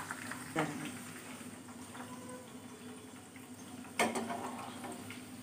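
Hot oil sizzling faintly in the pan after frying green chillies, with a knock of the slotted spoon about half a second in and a sharper knock about four seconds in.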